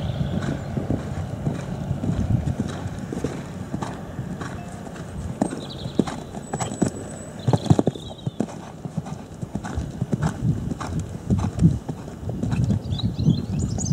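Hoofbeats of a horse cantering on a sand arena: a run of dull, irregular thuds.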